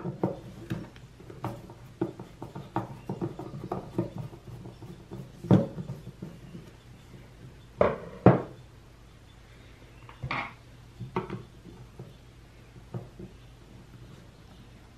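Screwdriver and small parts clicking and knocking against a chainsaw's hard plastic handle housing while a Phillips screw is backed out. Irregular light clicks, with a few louder knocks around the middle, thinning out near the end.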